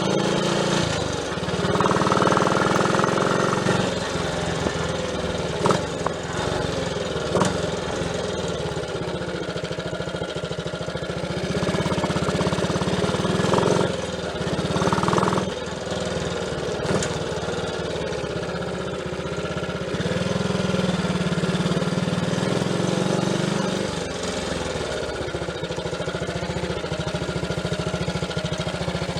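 Triumph Tiger Cub's single-cylinder four-stroke engine running on the move, its note rising and falling several times. It is firing evenly, not missing a beat, now that the loose distributor has been clamped and the ignition timing no longer wanders.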